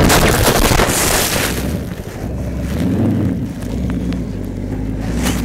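Dirt bike engine running through a helmet-mounted microphone with wind rushing over it, a burst of hiss about a second in. The engine then settles to lower, steady revs, and a sharp knock comes near the end.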